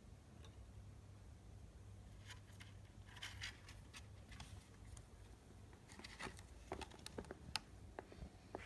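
Faint scattered clicks and light scratching of a kitten moving about in a wire pet cage. There is a cluster about three seconds in and a run of sharper clicks from about six seconds.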